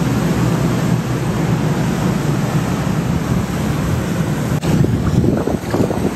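Wind buffeting the microphone on an open ship's deck, over a steady rush of water.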